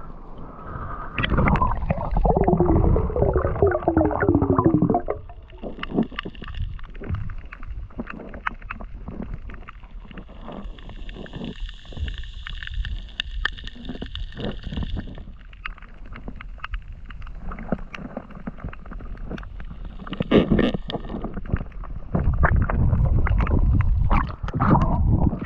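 Underwater sound from a snorkeller's camera: muffled water noise with irregular clicks and gurgling throughout, louder for the first few seconds and again near the end.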